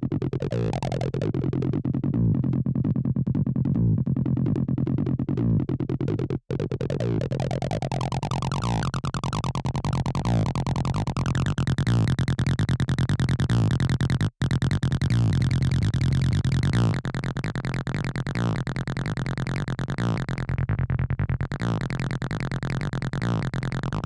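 Acid electronic music: a fast repeating synthesizer pattern over a steady, heavy bass. The synth tone brightens and climbs over several seconds about a third of the way in, and the music drops out for an instant twice.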